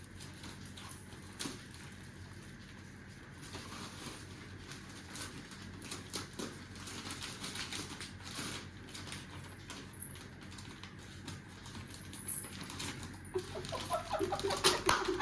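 Newspaper gift wrapping being torn and pulled open, a run of paper crackling and rustling that grows busier after about four seconds in.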